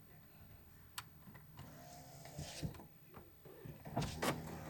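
2001 Toyota Corolla's electric window motor running as the door glass is lowered, a steady whine that runs in two spells, with a click about a second in and a couple of sharp knocks near the end.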